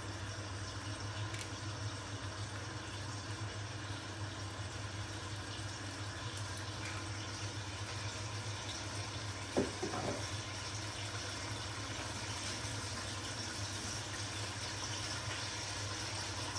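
Chicken pieces cooking in a stainless-steel kadai over a gas flame: a steady sizzling and bubbling. One short knock a little past halfway.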